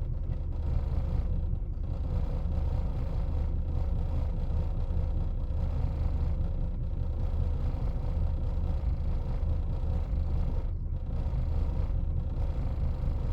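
1999 Lexus RX 300's 3.0-litre V6 idling roughly in drive, heard from inside the cabin as a steady low rumble with an uneven, struggling beat: cylinder 6 is misfiring, which the owner puts down to a bad ignition coil.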